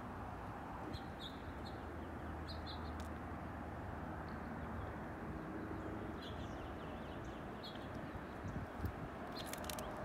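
Steady wind noise, with small birds giving a few short, high chirps now and then. A few light clicks near the end.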